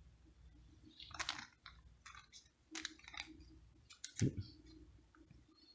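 Light clicks and rustles of small metal regulator parts being handled and set down on a cluttered workbench, with one sharper knock about four seconds in.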